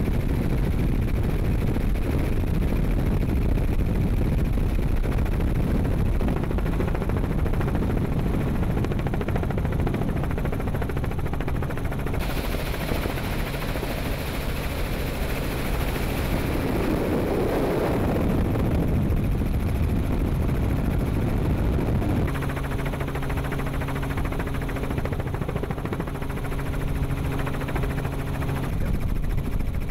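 Helicopter noise recorded aboard in flight: a steady, loud rumble of engine and rotor, with a low hum that fades in and out.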